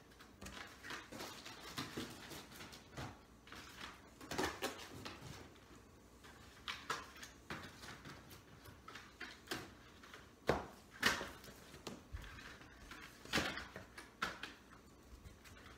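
Items being packed into a cardboard box: irregular knocks, taps and rustles as things are set down and shifted inside it, the loudest knocks in the second half.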